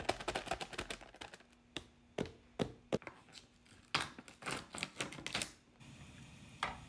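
Plastic food packaging crinkling and crackling under fingers: a plastic instant-noodle packet, then the film seal peeled off a plastic sauce tub. Near the end, over a steady low hum, a spoon clinks once against a metal saucepan.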